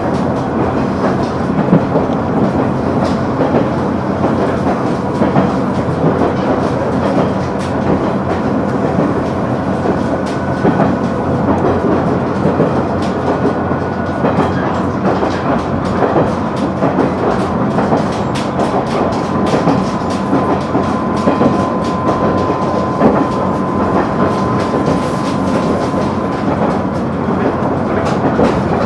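A KiHa 100 diesel railcar running along the line, heard from inside the passenger cabin: a steady rumble of engine and wheels with frequent clicks over the rail joints. A faint thin whine joins it for a few seconds in the middle and again for several seconds in the second half.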